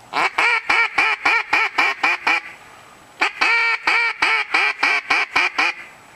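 Duck call blown in quacks: two fast runs of about ten evenly paced quacks each, about a second apart, calling to ducks flying over the decoys.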